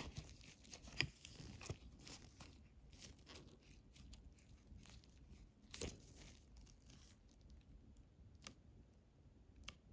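Faint rustling of a plastic nail-sticker sheet handled in nitrile-gloved hands, with a few sharp little clicks and taps, the loudest about six seconds in.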